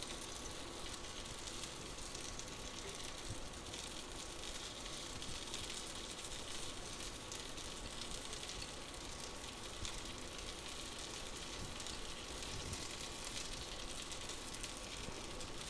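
Faint, steady sizzling of an egg breakfast pizza frying in a non-stick skillet on a lit burner.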